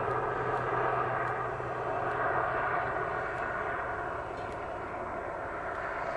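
Naval helicopter flying past, its turbine engines and rotor making a steady whine and rumble that eases off slightly a few seconds in.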